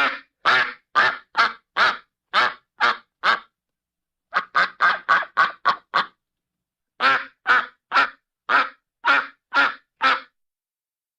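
Duck quacking in three runs of short, repeated quacks: an even series of about eight, a quicker burst of about nine, then about seven more, with dead silence between runs and after the last.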